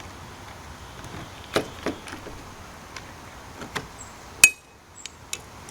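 Metal parts of an electronic deadbolt lock knocking and clicking against the door as the unit is fitted: a few light knocks, then a sharp metallic click with a brief ring near the end.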